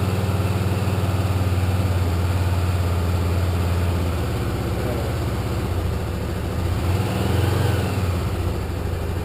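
Honda CBX250 Twister's single-cylinder four-stroke engine running at a fast idle on partial choke as it warms up from a cold start. It runs steadily, with its speed briefly rising and falling about seven seconds in.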